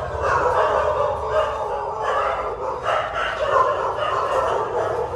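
Dogs barking over and over without a pause.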